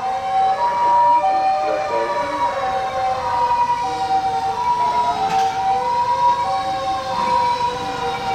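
Japanese emergency-vehicle sirens: an ambulance's two-tone 'pii-poo' siren stepping between a high and a low note about every two-thirds of a second, over fire engines' wail sirens slowly rising and falling.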